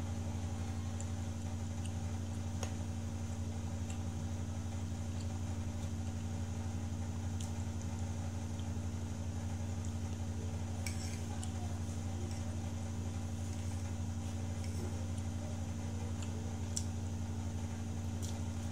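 A steady low hum from a running appliance, with a few light clicks of a metal fork against a plate.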